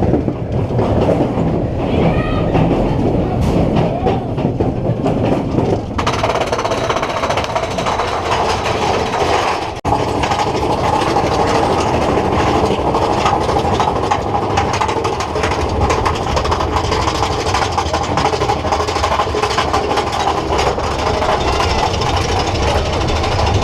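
Big Thunder Mountain Railroad mine-train roller coaster running along its track: a loud, continuous rumble and clatter of the train's wheels on the rails. The sound changes abruptly about six seconds in and drops out for a moment near ten seconds.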